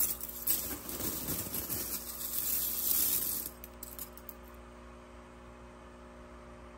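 Shredded aluminum can flakes clinking and rustling as a handful is dropped and sifted in a plastic tub. This stops about three and a half seconds in, leaving a few small clicks and a faint steady hum.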